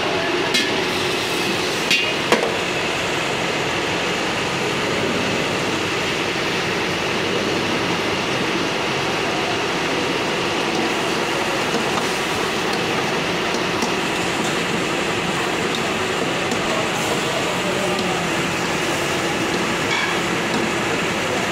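Steel ladle clanking against a steel karahi a few times in the first few seconds, over the steady noise of gas burners and mutton bubbling and sizzling in the wok.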